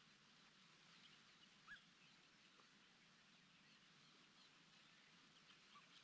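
Near silence in a reed bed: faint, scattered short chirps of distant birds, with one brief, slightly louder call a little under two seconds in.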